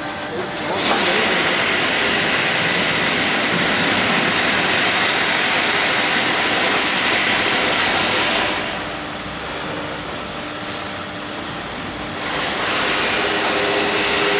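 Zopf ZB80 CNC tube bending machine running with a steady, loud mechanical hiss. It eases off for about four seconds past the middle, then comes back up.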